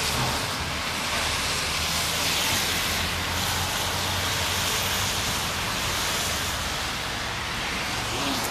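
Steady rushing outdoor noise with an uneven low rumble underneath, from wind on the microphone and traffic on wet streets.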